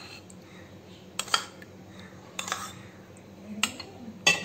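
A steel spoon clinking and scraping against a small steel bowl as curd is scooped out onto flour in a steel plate. There are several separate sharp clinks, the loudest near the end with a short metallic ring.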